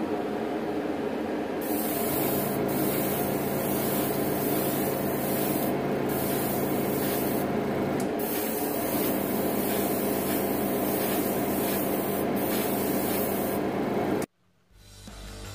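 Airbrush spraying primer in a series of hissing passes, with short breaks where the trigger is let off, over a steady motor hum. The sound cuts off suddenly near the end.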